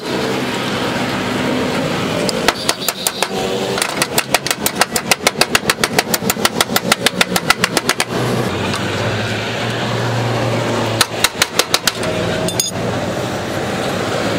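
Electric arc welding on a car's sheet-metal rocker panel: a steady crackling hiss with a low hum, broken twice by runs of rapid sharp ticks, about five a second.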